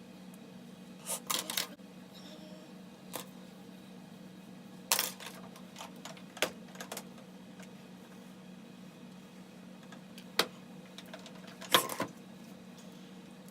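Scattered short clicks and rustles of hands handling hair and styling tools while parting and arranging a wig, over a steady low hum. The loudest click comes near the end.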